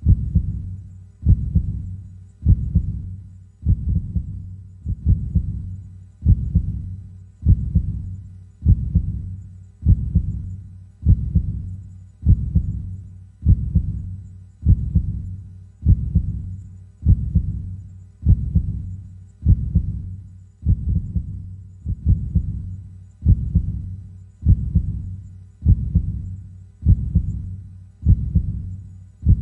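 A slow, steady heartbeat: deep thumps at about fifty beats a minute, each dying away before the next.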